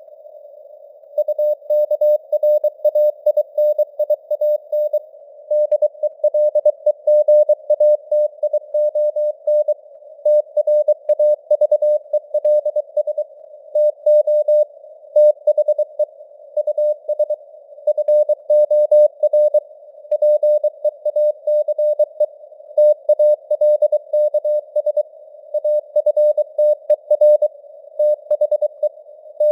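Morse code sent at 23 words per minute: a single tone of about 600 Hz keyed on and off in quick dots and dashes, within a narrow band of simulated radio hiss, with the signal strength varying as in QSB fading. The keying pauses for about a second at the start, then runs on without a break.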